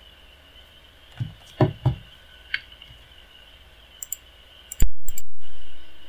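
Computer mouse clicks from someone working at a desk, with a few dull thumps in the first two seconds and a loud abrupt burst of noise about five seconds in that lasts around a second.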